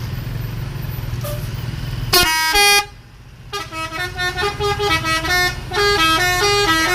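A bus engine runs with a low rumble. About two seconds in, a telolet musical bus horn gives a short, loud multi-note blast. It then plays a quick tune of notes that step up and down, which stops near the end.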